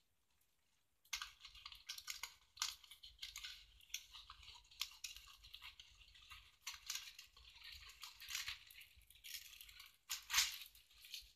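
Cellophane crinkling and rustling as it is handled, a quiet, dense run of crackles starting about a second in, with a louder burst near the end.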